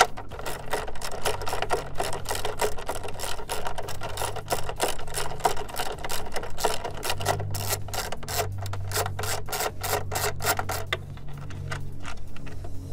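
Quarter-inch ratchet clicking rapidly as it is worked back and forth to undo an engine-cover fastener. The fast run of clicks stops about eleven seconds in.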